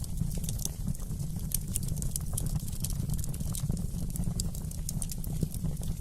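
Fireplace wood fire crackling: irregular sharp pops and snaps over a steady low rumble.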